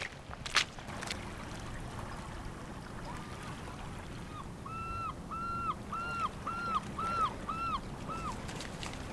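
Cork squeaking against the glass as it is twisted out of the neck of a bottle: a run of about ten short squeaks, about two a second, each holding one pitch and dropping off at the end. A couple of sharp knocks come near the start.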